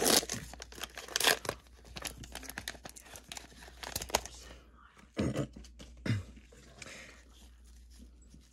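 Plastic wrapper of a 2023 Panini Prizm football value pack crinkling and tearing open, a dense run of rips and crackles for the first four seconds or so, then fainter rustling as the cards are handled.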